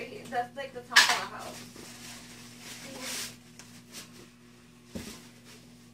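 Packing being pulled out of a toy box, foam inserts and plastic wrapping handled: a sharp clatter about a second in, a longer rustle around three seconds in, and a light knock about five seconds in.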